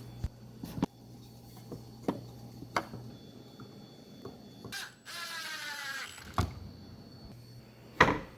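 Scattered knocks and taps of workshop parts being handled, with a rising squeak lasting about a second near the middle and a loud knock near the end.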